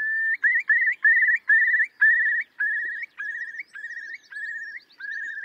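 Eurasian curlew giving its bubbling song: a string of rising, quavering whistles. The notes come quickly at first, then slow down and grow weaker towards the end.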